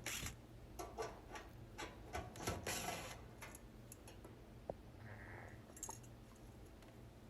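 Parts being handled by hand: a run of light clicks, taps and rubbing in the first three seconds or so, then a few faint isolated ticks, over a low steady hum.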